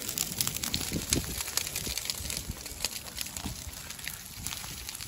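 Dry grass burning close by, crackling with many sharp, irregular pops over a low rumble.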